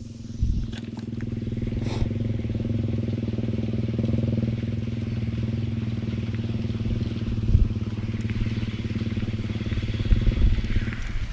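A small engine running steadily at a constant speed, with an even hum.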